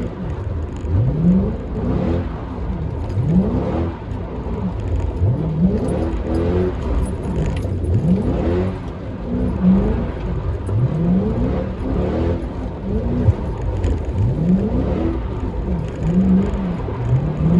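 Dodge Charger R/T's 5.7-litre HEMI V8 revving up again and again, roughly every second or two, heard from inside the cabin during drift practice.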